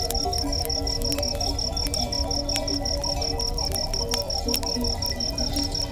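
A cricket chirping in a steady, even rhythm of about four high chirps a second, with sharp crackling clicks from a small wood campfire.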